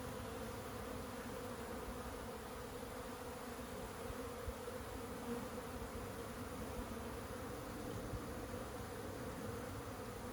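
Honeybees of a strong, populous colony buzzing in a steady, even hum.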